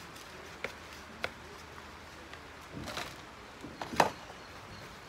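Sharp clicks and knocks of a hand tool against a plastic plant pot and basin, with a brief scrape about three seconds in. The loudest knock comes about four seconds in, as the tool meets the plastic basin.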